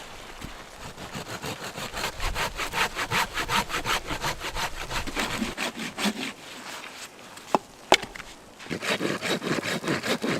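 Hand saw cutting through wood in quick back-and-forth strokes. The strokes stop for a few seconds, with two sharp knocks, then start again near the end.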